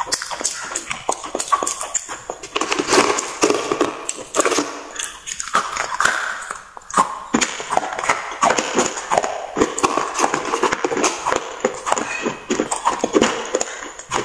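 Slate pencils being chewed close to the microphone: many sharp crunches in quick succession, continuing throughout.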